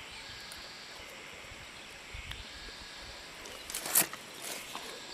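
Steady faint outdoor background hiss with a few soft low bumps, and a short, loud brushing rustle on the microphone about four seconds in, as the camera is handled.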